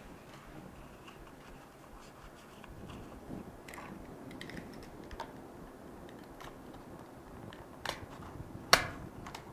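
Thin card being handled and folded with faint rustles and small clicks, then a desk stapler clicking shut on the card near the end, the loudest sound, just after a smaller click.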